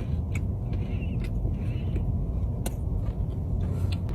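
A person chewing a bite of cookie, heard as a few soft clicks over a steady low rumble.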